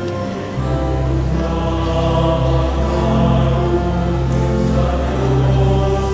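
Church choir singing a hymn with instrumental accompaniment; deep held bass notes come in about half a second in and carry on beneath the voices.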